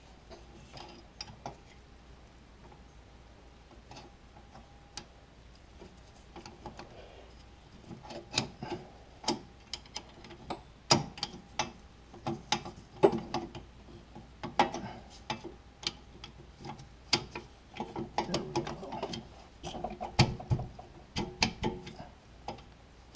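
Irregular metallic clicks and clinks of Corvette parking brake shoes and their hardware being handled and fitted against the backing plate. Sparse at first, much more frequent from about eight seconds in.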